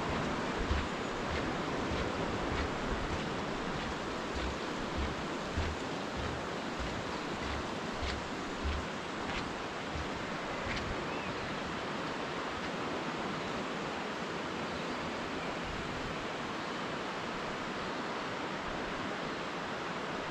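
Steady rushing outdoor noise of wind and the river in the gorge below, with soft low thuds of footsteps on the suspension bridge's wooden deck about once a second for the first nine seconds or so, then stopping.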